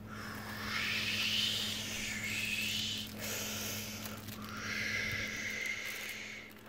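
Two long hissing whooshes, the second starting about three seconds in, over a faint steady hum.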